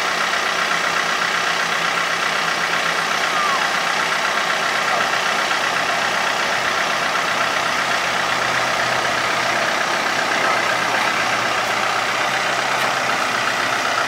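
John Deere utility tractor's diesel engine running steadily as the tractor creeps along with a load on its front loader.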